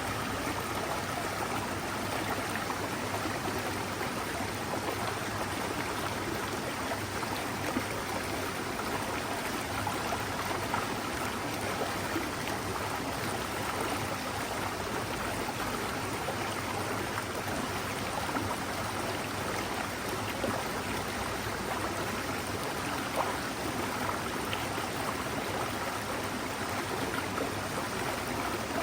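Small forest mountain stream flowing steadily, a continuous babbling rush of water.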